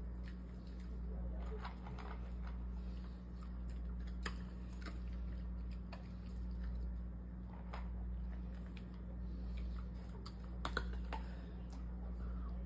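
Dog crunching dry kibble: scattered crisp crunches a second or more apart, a few in quick succession near the end, over a steady low hum.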